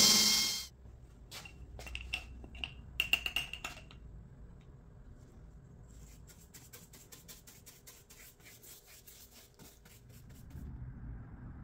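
A Milwaukee M18 cordless drill driving a screw into wood runs briefly and cuts off in the first second. A few faint clicks and squeaks follow. Then a brush rubs stain onto cedar boards in a quiet run of short strokes, about four a second.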